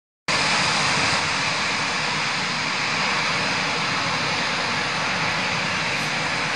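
An Airbus A340-300's four CFM56 jet engines: a steady jet noise from the airliner on its landing approach.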